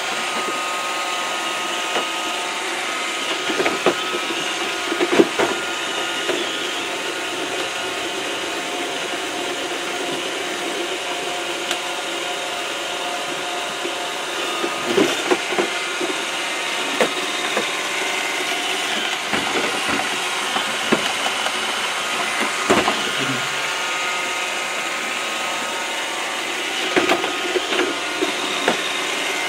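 iRobot Roomba robot vacuum running: a steady whirr of its vacuum motor and brushes with a few whining tones in it. Short knocks come every few seconds as it bumps into the walls that trap it.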